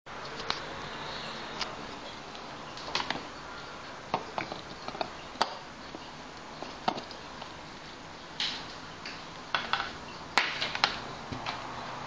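Handling noise: scattered clicks and taps with a few short rustles as a Runbo X5 rugged smartphone and its cardboard box are handled, over a steady faint hiss.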